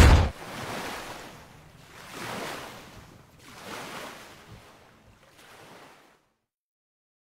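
Sound-effect whooshes from an animated logo intro: about four swells of rushing noise, each fainter than the last, dying away to silence around six seconds in.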